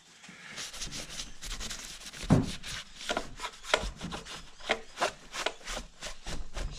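Irregular knocks, scrapes and rubbing of things being handled and moved about on a work surface, with one louder knock a little over two seconds in.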